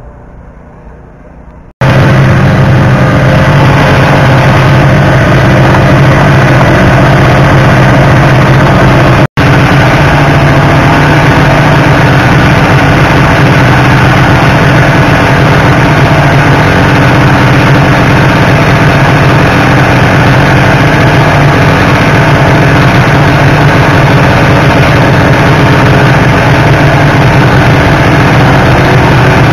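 A snowmobile engine runs loud and steady at a constant speed, very close to the microphone. It cuts in suddenly about two seconds in and breaks off for an instant about nine seconds in.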